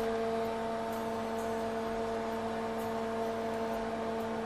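Steady electric hum of a running kitchen appliance motor, one low tone with several evenly spaced higher tones above it, over a faint hiss.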